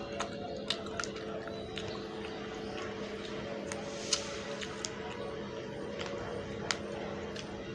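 Close-up wet eating sounds of rice and fish curry eaten by hand: squishy chewing and scattered sharp mouth clicks and smacks, the loudest about four seconds in. A steady low hum runs underneath.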